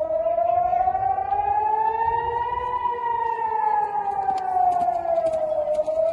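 Civil-defence air raid siren wailing as a missile alert. Its pitch rises slowly for nearly three seconds, falls for about three, then starts to rise again near the end.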